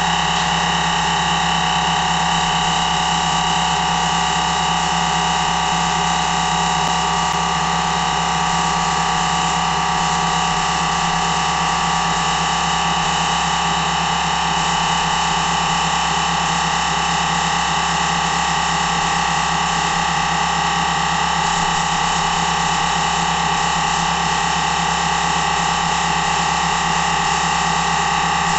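Air compressor and paint spray gun running steadily while primer is sprayed: a constant hiss with a steady hum underneath, unchanging throughout.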